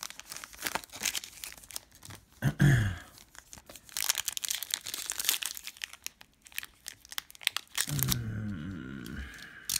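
Foil trading-card pack wrapper being torn open and crinkled by hand, in a rapid run of crackles. A brief low voice sound comes about two and a half seconds in, and a longer mumble comes near the end.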